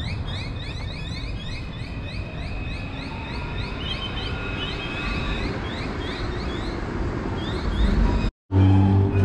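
Outdoor city street noise with a low traffic rumble. Over it comes a quick run of short rising chirps, about four a second, with a steady high tone for the first five seconds or so, and a few more chirps later. Near the end the sound cuts out and music begins.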